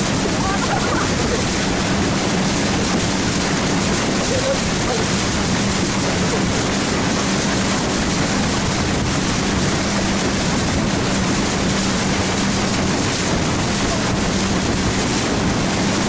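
Motorboat underway: a steady engine hum under a loud, even rush of water and wind.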